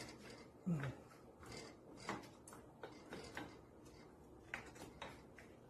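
Faint scattered clicks and light knocks of handling in a kitchen, with one short low falling sound a little under a second in.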